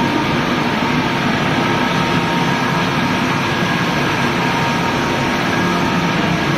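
Machinery of a puffed corn snack extrusion production line running: a loud, steady drone with a constant high whine on top, unchanging throughout.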